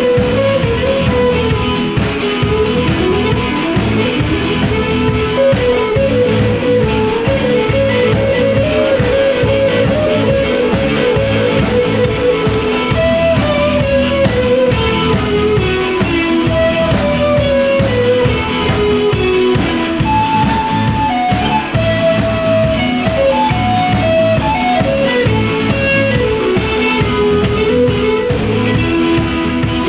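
Band music: electric guitar playing a melody that moves up and down over a steady drum-kit beat, loud throughout.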